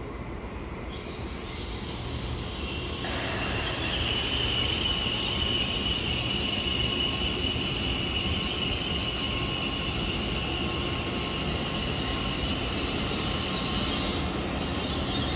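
N700S series Shinkansen train rolling slowly into the station as it brakes to a stop: a low rumble of wheels on rail under a steady high squeal. The sound builds over the first few seconds and dips briefly near the end.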